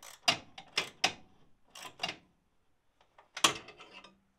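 Hand tools knocking and clinking against metal as bolts are done up behind the pedal box: a handful of irregular sharp knocks, the loudest about three and a half seconds in.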